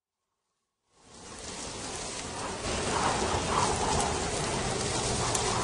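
Steady rain-like hiss that fades in about a second in and then holds, with a few faint tones rising over it in the middle.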